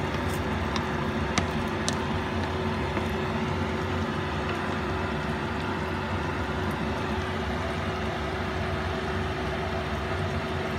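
Steady motor hum with a constant mid-pitched tone, and a few faint sharp clicks in the first two seconds.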